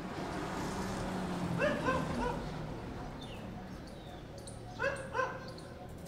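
A dog barking in short yips: a quick run of three about two seconds in and two more near the end.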